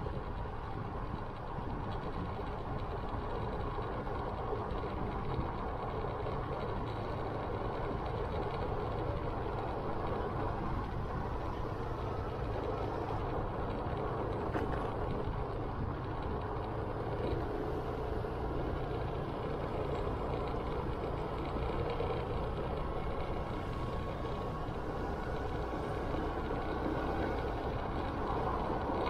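Motorcycle on the move: its engine running steadily under continuous wind and road noise.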